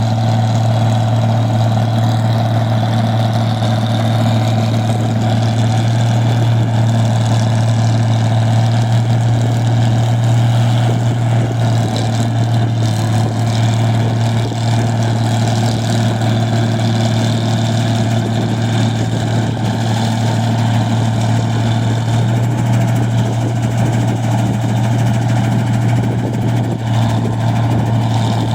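Diesel engine of a rice milling machine running steadily at a constant speed, a loud, even drone with no change in pitch.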